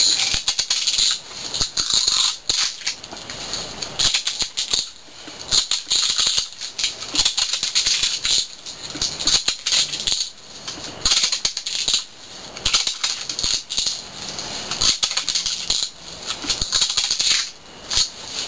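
Thin duct tape being pulled off the roll in repeated noisy strips and wound around a vacuum hose fitting to make it fit snugly.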